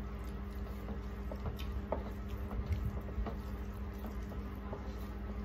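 Hand-eating sounds: fingers mixing rice and curry on stainless steel plates, giving scattered light clicks and taps, over a steady low hum.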